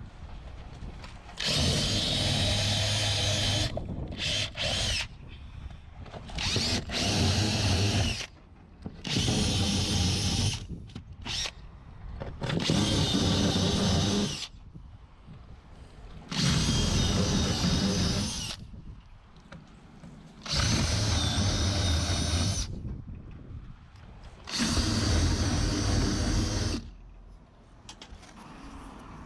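A power tool running in about eight short runs of one to two seconds each, with brief pauses between them.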